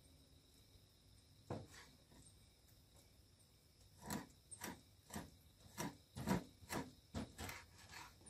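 Light knocks and taps: a couple scattered in the first seconds, then a quick irregular series of about two a second over the last four seconds, over a faint steady high-pitched hum.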